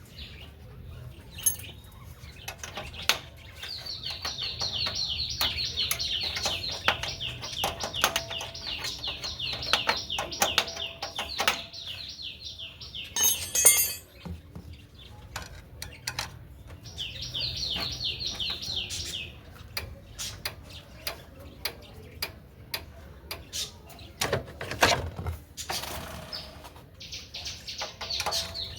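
Metal tools and parts clinking and tapping while a motorcycle's rear brake and wheel are worked on, with one sharp rattle about halfway through. Behind it a bird calls in three bouts of rapid, evenly repeated falling chirps.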